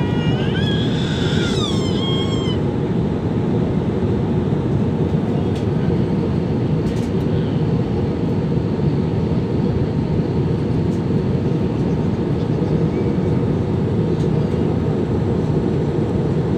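Airliner cabin noise at cruise altitude: a steady, loud rushing, strongest in the low range. In the first couple of seconds a brief high, wavering cry rises and falls over it.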